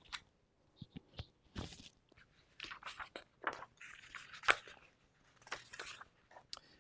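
Faint scattered clicks and short rustles of handling noise close to the microphone.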